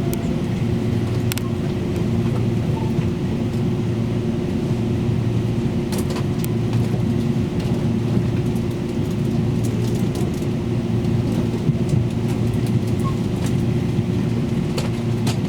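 Taiwan Railways Tze-Chiang express train running, heard inside the carriage: a steady rumble with a constant low hum, broken by occasional sharp clicks.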